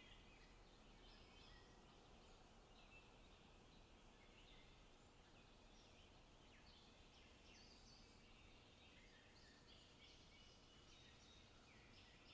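Faint forest bird chorus: several small birds chirping and trilling in short overlapping phrases, over a low steady hiss of background noise.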